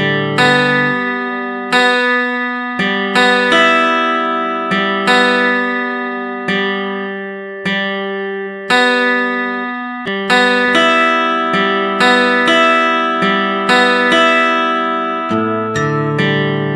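Instrumental background music: plucked acoustic-guitar notes and chords, each struck and left to ring and fade.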